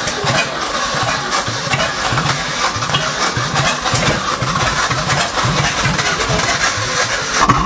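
Old Ford F-250 pickup's engine running rough just after a first-try start on a new battery, as the truck pulls slowly away.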